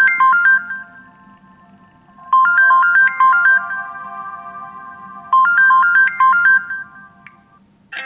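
LG Q6 smartphone ringtone previewing through the phone's speaker: a short melody of bright chime-like notes, played three times about three seconds apart, each phrase ringing out before the next. A faint click comes near the end.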